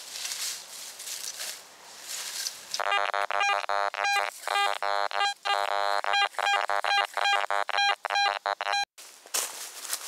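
Steps and rustling in dry leaf litter, then from about three seconds in a metal detector sounding a loud, steady buzzy tone, chopped into repeated beeps as the coil is swept back and forth over a buried metal target. The tone cuts off abruptly near the end and the leaf rustling returns.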